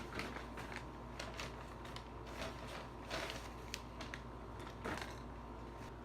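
Eating sounds close to the microphone: irregular crunches and clicks of chewing and handling food.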